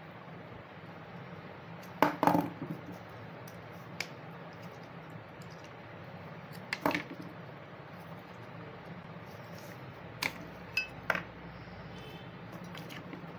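A metal tool clinking and scraping against the steel casing of a dry cell battery as the casing is pried open. There are several separate sharp clinks at irregular intervals, the loudest about two seconds in.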